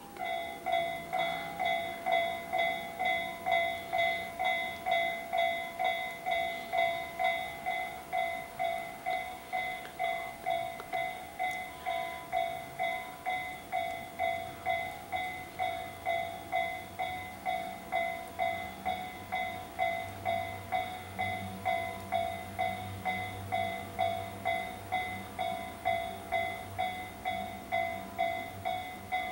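Level-crossing warning bell ringing steadily at about two strikes a second, starting suddenly. From about halfway through, the low rumble of an approaching train builds beneath it.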